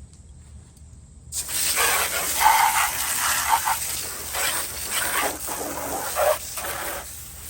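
Water spraying from a hose onto a robot lawnmower's body, rinsing off soil and grass. It starts suddenly about a second in and keeps going with an uneven hiss.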